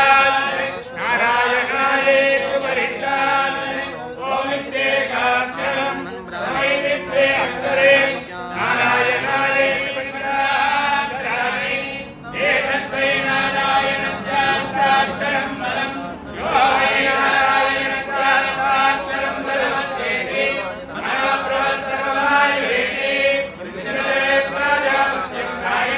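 A group of priests chanting Vedic mantras together for the homam, in phrases of about four seconds with short breaks between them.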